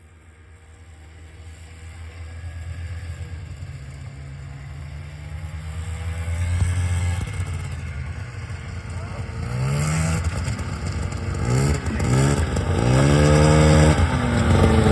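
Snowmobile engine running and growing steadily louder as the sled approaches, then revving up and down several times in the last few seconds.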